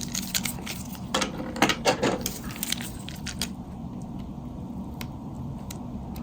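Plastic clicks and scrapes from the Nokia 3350's case being pried at its latches. There is a quick cluster of clicks in the first three seconds or so, then only a few single clicks.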